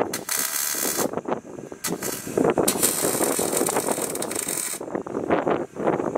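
Welding arc crackling and hissing while tack-welding the joints of aluminium pontoon tubes, in a few runs with short breaks between them.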